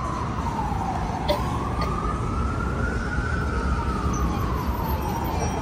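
Emergency vehicle siren on a slow wail, its pitch sliding down and back up about once every four seconds, over the steady rumble of city street traffic.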